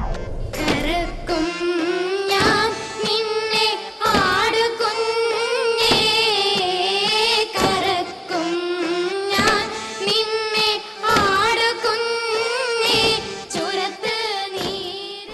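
A girl singing a melody with wavering, ornamented notes, over music.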